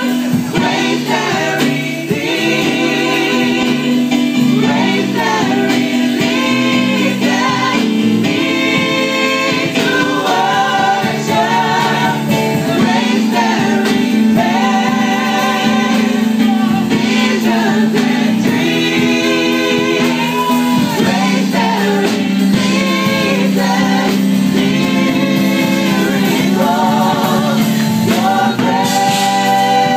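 A small gospel vocal group singing a praise and worship song in harmony, mostly women's voices, with long held notes, sung into microphones over a keyboard playing steady low chords.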